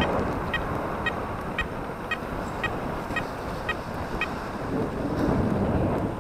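Short electronic beeps at about two a second, evenly spaced, that stop about four seconds in. Underneath runs a steady rush of wind and road noise on a moving bicycle's microphone.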